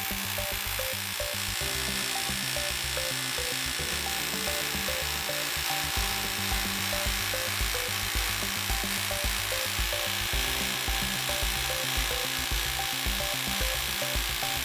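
Power drill running steadily in the open as a loud, even grinding hiss, with background music playing beneath it.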